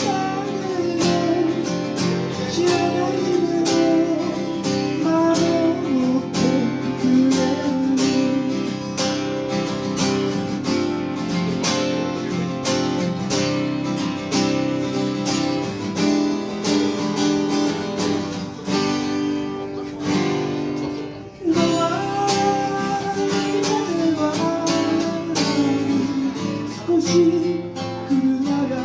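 A guitar is strummed while a singer sings a song, a live vocal-and-guitar duo performance. The music drops briefly about three-quarters of the way through, then carries on.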